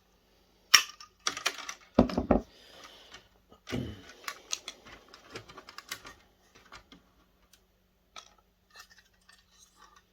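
Small plastic and metal parts and wires of a dismantled video projector being handled and set down: irregular clicks, clinks and clatters with soft rustling, a sharp click about a second in and heavier knocks around two and four seconds in.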